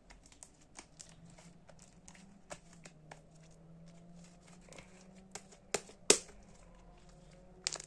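Homemade glue-and-detergent slime being squeezed and stretched by hand, giving irregular small clicks and pops, the loudest a little past six seconds in.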